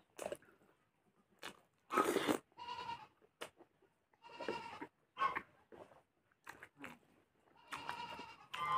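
Short pitched animal calls, repeated every second or two, over the clicks of a spoon on a metal plate and chewing.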